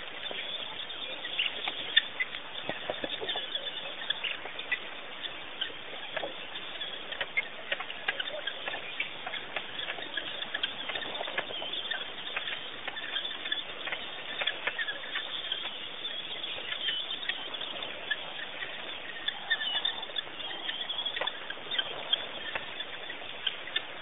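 Busy chorus of small birds chirping and chattering, many short chirps and clicks with no break, dulled by the stream's narrow bandwidth.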